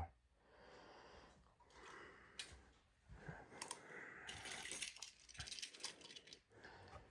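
Faint handling of small plastic wind-up toys: scattered light clicks and rustling, busiest about halfway through.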